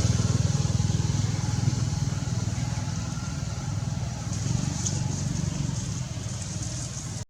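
Steady low rumble of a motor vehicle engine running, with a fine, even pulse.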